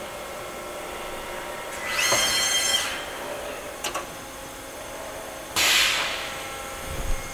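2003 Haas SL-10 CNC lathe at the end of a cycle, its spindle stopping from 1500 rpm: a steady machine hum with several fixed tones, two short loud rushes of noise about two and six seconds in, and a click near four seconds.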